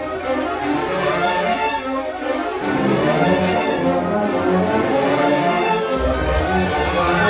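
Orchestral music with strings and brass playing busily, a deep bass entering about six seconds in.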